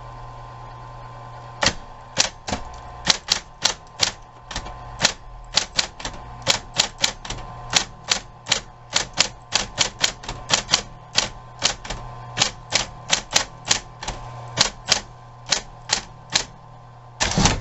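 Smith Corona Coronet Super 12 Coromatic electric typewriter being typed on: sharp, unevenly spaced keystrokes, about two or three a second, over the steady hum of its running motor, ending in a short rattling burst.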